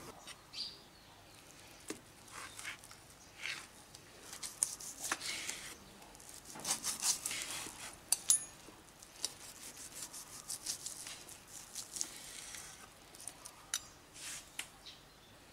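A knife sawing slices off a roast leg of goat on a wooden cutting board, short scraping strokes with scattered light clicks of metal on the board.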